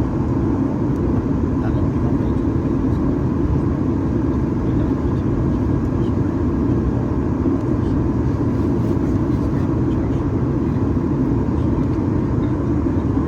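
Steady cabin noise of a Boeing 737 MAX 8-200 in flight: an even, deep rush of airflow and CFM LEAP-1B engine drone, unchanging throughout.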